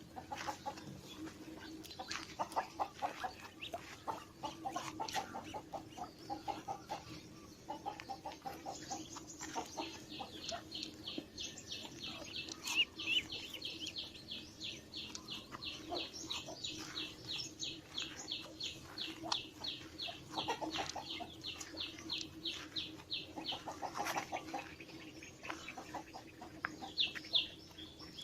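Chickens clucking, with a long run of rapid high-pitched chirps at about three a second through the middle, over a steady low hum.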